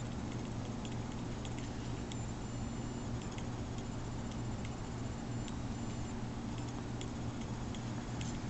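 A steady low hum with faint, scattered small ticks and scratches of a kitten's claws and paws moving over fabric and a hand.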